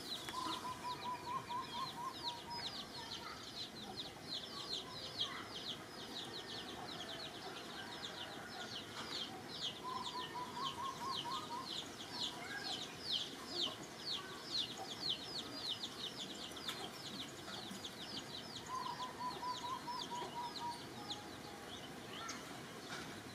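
Birds calling: a steady run of quick, high, falling chirps, about four a second, with a short lower trill heard three times, near the start, in the middle and near the end.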